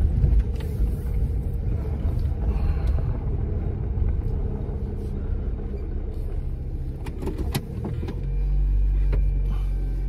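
Car engine and road noise heard from inside the cabin while driving, a steady low drone. A few sharp clicks come about seven seconds in, and the drone grows louder and steadier about a second later.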